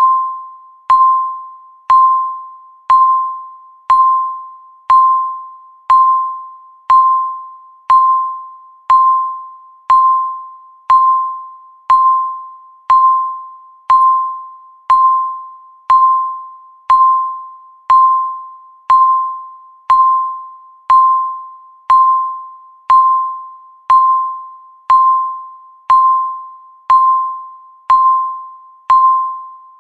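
Countdown timer beep: a single bell-like tone, sharp at the start and dying away, repeating once a second, one beep for each second left.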